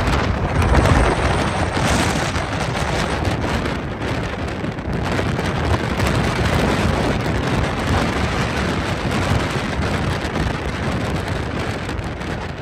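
Wind rushing over the microphone mixed with road noise from a moving vehicle: a steady, dense rushing hiss over a low rumble.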